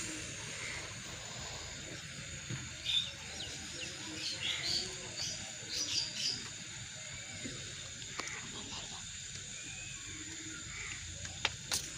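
Small birds chirping in short, scattered calls over a steady background hiss, busiest in the first half, with a few sharp clicks near the end.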